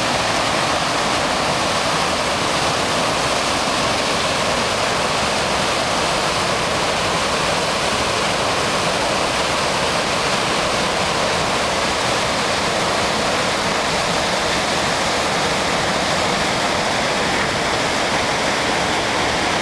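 Large waterfall: a torrent of white water pouring through a rocky gorge, giving a loud, steady rushing that does not let up.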